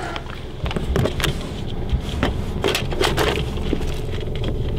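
Rummaging in a car's glove compartment: scattered clicks, clinks and rattles of small items being shifted about, over the car's low, steady running rumble.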